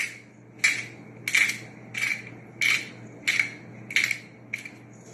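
Hand-twisted pepper mill grinding peppercorns: a short gritty crunch with each twist, about eight twists at a steady pace of roughly three every two seconds.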